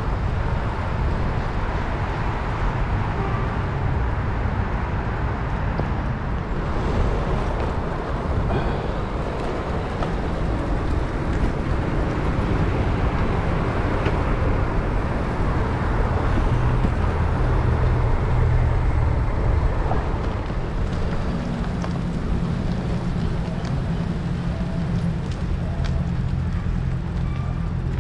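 City road traffic heard from a moving bicycle: the engines and tyres of nearby cars and buses running, with wind rumbling on the microphone. A steady low engine hum sets in about two-thirds of the way through.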